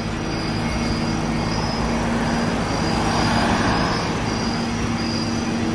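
Steady car engine hum and road noise, swelling briefly about three seconds in as a vehicle goes by.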